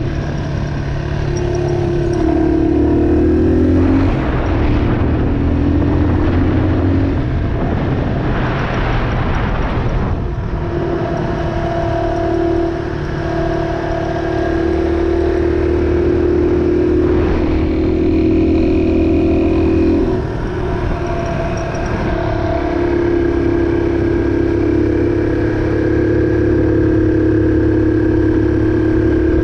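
Yamaha XT225's single-cylinder four-stroke engine running under way, its note dropping and rising as the throttle is eased and opened. There are two stretches of rushing noise, about 4 and 9 seconds in.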